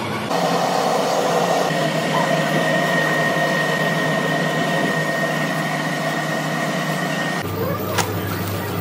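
Papad-making conveyor machine running: a steady mechanical whir with a high whine held through it. Near the end the sound changes abruptly and there is one sharp click.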